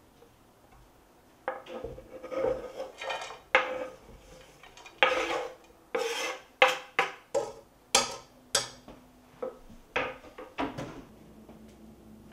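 Chopped herbs and vegetables scraped off a bamboo cutting board into a pot: a run of scraping strokes and sharp wooden knocks, about two a second in the second half.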